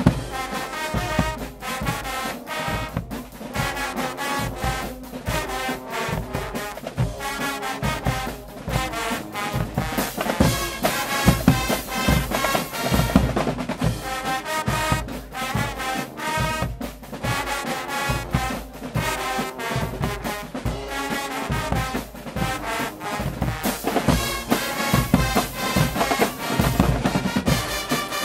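Guggenmusik band playing: trumpets, trombones and sousaphones over a drum kit, snare drums and toms keeping a steady beat.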